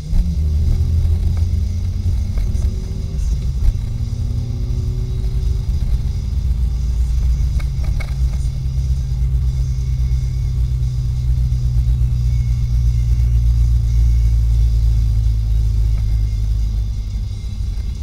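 A manual-transmission car's engine heard from inside the cabin: just after a gear change it pulls up in pitch over the first few seconds, then holds a steady drone while cruising.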